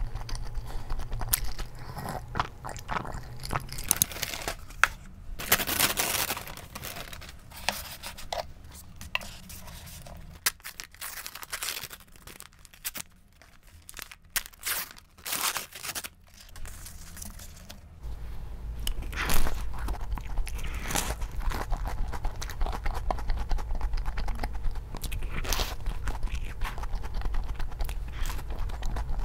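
Close-miked eating sounds: chewing and slurping, then paper wrapping crinkling, then crunchy bites into a crisp, cream-filled egg waffle and chewing.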